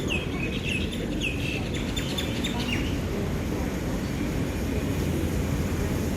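Small birds chirping in quick, rising-and-falling calls for the first three seconds, over a steady low rumble.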